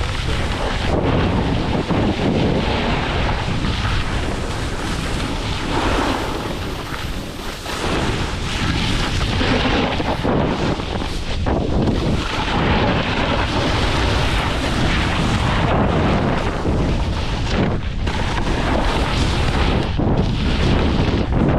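Heavy wind buffeting the camera microphone during a fast downhill run: a constant, loud low rumble with no break, easing briefly about seven seconds in.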